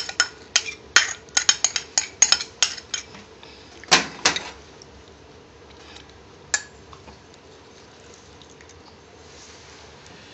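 Bowls and utensils clinking and knocking as the grape, chili and garlic mixture is put into a dish. There is a quick flurry of clinks for about three seconds, two louder knocks about four seconds in, one more a little later, then it goes quiet.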